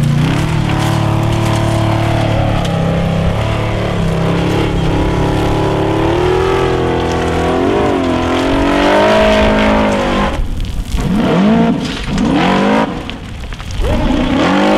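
Formula Offroad hillclimb buggy's engine revving hard under load, its pitch rising and falling as it claws up a loose sand slope. In the last few seconds it gives a run of quick, sharp revs with short drops between them.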